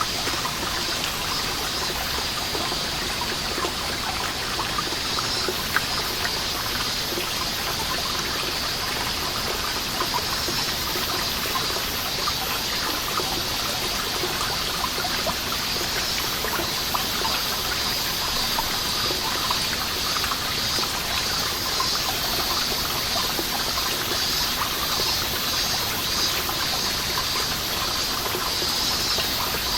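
Water drops falling continuously from a moss-covered rock wall, a dense patter of many small drips and trickles. Cicadas sing steadily behind it, their pulsing a little stronger in the second half.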